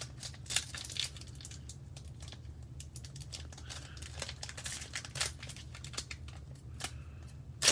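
Thin plastic card sleeves crinkling and rustling as trading cards are slid into them by hand, with scattered small clicks over a steady low hum.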